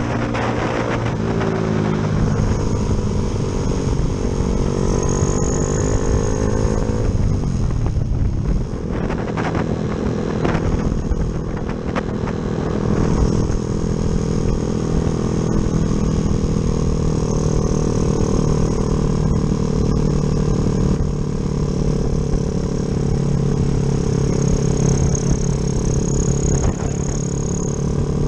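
Yamaha Jupiter MX single-cylinder four-stroke engine, fitted with a 72 piston, running under a moving rider: the revs fall for about eight seconds and dip, then pick up again and stay fairly steady with small rises and falls.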